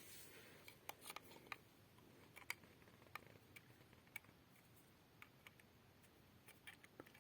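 Near silence broken by faint, scattered clicks and small taps of small electronic test gear being handled: pickup coils and leads being placed by an oscilloscope.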